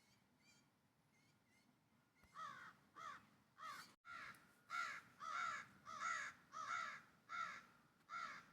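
A crow calling: faint calls at first, then from about two seconds in a steady run of about ten loud caws, each short and falling in pitch, coming roughly one and a half a second.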